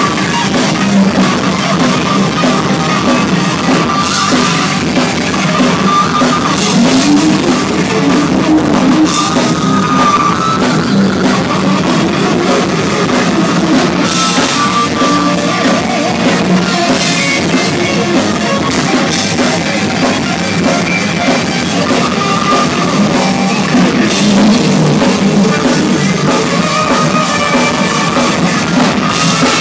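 Thrash metal band playing live at full volume: distorted electric guitars over a fast drum kit, with sustained, bending lead guitar notes.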